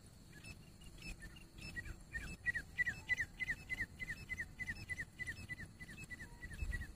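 Grey francolin calling: a fast run of short, high notes, each slurring downward, about five a second. It starts faint and grows louder about two seconds in.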